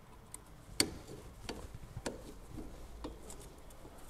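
Pliers clicking against a split pin as it is bent over in the handbrake lever of a drum brake: a string of sharp clicks, about two a second, the loudest a little under a second in.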